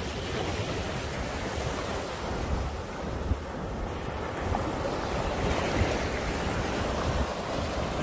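Small sea waves lapping and washing up onto a sandy shore, with wind buffeting the microphone. The wash grows a little louder about halfway through.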